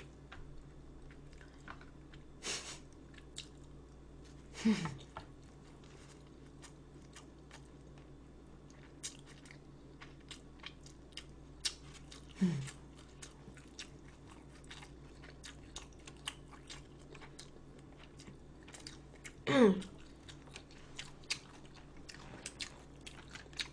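A person chewing food close to the microphone, with small wet clicks and soft crunches. Three times, about five, twelve and twenty seconds in, there is a short, louder sound that falls in pitch; the last of these is the loudest.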